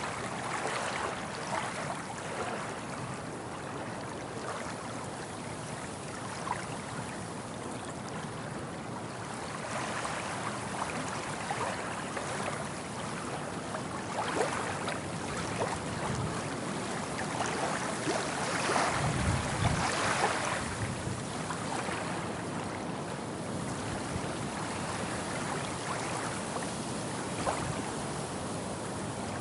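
Soft ocean waves rolling in and washing up on a beach. The surf swells and fades every few seconds, the biggest surge about two-thirds of the way through.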